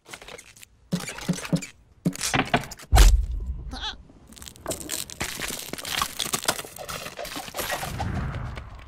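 Cartoon sound effects: a sabre-toothed squirrel's squeaks and grunts as it pounds an acorn into the ice, with several knocks and one heavy thump about three seconds in. Near the end comes a low rumble and the ice starts to crack.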